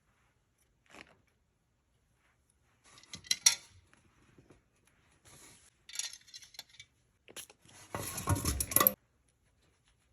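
Metal barber shears being handled: scattered light clinks and rattles of steel on steel, with a louder clattering burst about eight seconds in.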